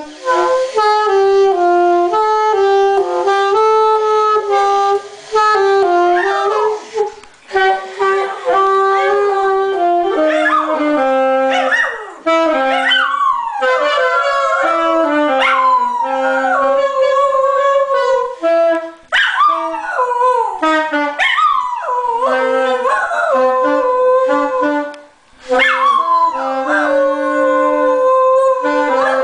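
A saxophone plays a slow melody of held notes while a dog howls along. From about seven seconds in, the howls rise and fall in pitch over the notes.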